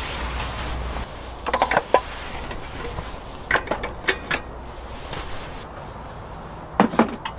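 Three short clusters of knocks and clicks a couple of seconds apart, after a low wind-like rumble that drops away about a second in.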